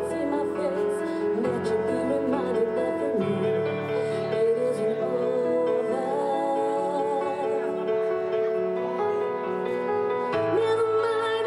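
A woman singing live over a backing track, her voice wavering on held notes.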